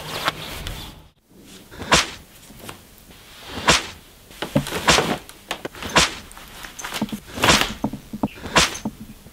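A series of sharp knocks and thumps at uneven intervals, about a dozen over several seconds, starting just after a brief silence about a second in.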